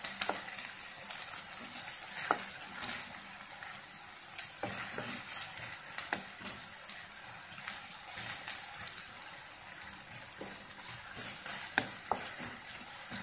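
Sliced onions sizzling steadily in plenty of hot oil in a wok while a spatula stirs them, scraping and tapping against the pan now and then, with a sharper tap about two seconds in and another near the end.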